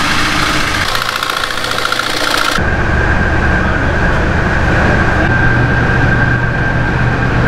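Steady machine hum with a thin, steady high whine over it; for the first couple of seconds a loud hiss lies on top.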